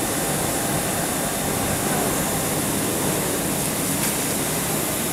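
Steady machinery noise with a hiss, from a CNC vertical foam cutting machine running, even and unchanging throughout.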